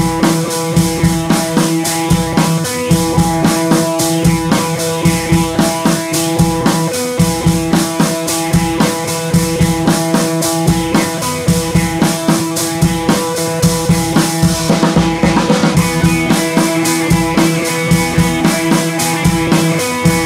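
Background music: a drum-kit beat with steady sustained instrument tones.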